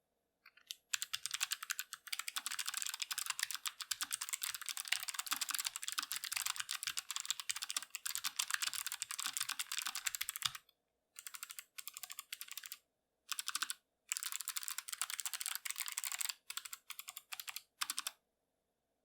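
Typing on a Logitech G915 keyboard with low-profile GL Clicky mechanical switches: a fast, continuous run of sharp key clicks for about nine seconds, then several shorter bursts of typing with brief pauses between them.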